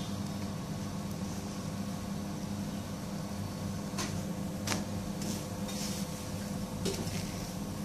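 A steady machine hum, with two light clicks of a stainless steel spatula against the flat pan about four seconds in and again just under a second later.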